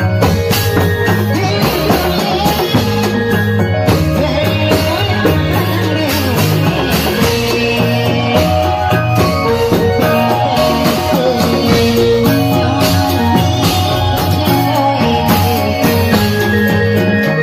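Loud traditional Indramayu reog ensemble music: drums and pitched percussion keep a steady rhythm under a melody line, with no break.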